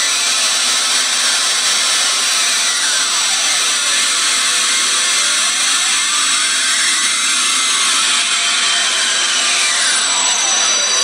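Samsung logo intro sound, four effects-altered copies layered at once: a dense, steady hiss with faint tones that sweep down and back up a few times.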